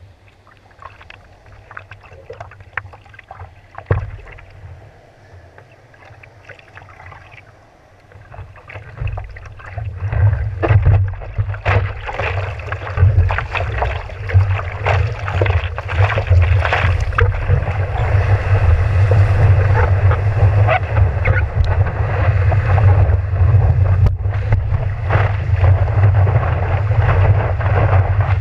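Water splashing and lapping around a longboard as the surfer paddles, with a single knock about four seconds in. About a third of the way in it builds into a loud rush of moving water and wind buffeting the board-mounted microphone as the board catches and rides a wave.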